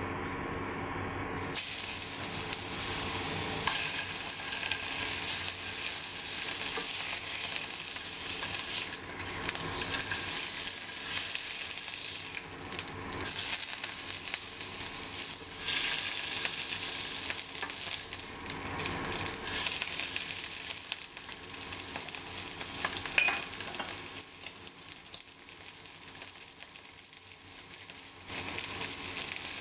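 Food sizzling and frying in a pan, stirred and scraped with a spatula. The sizzle starts suddenly about a second and a half in, dies down somewhat in the later part and swells again near the end.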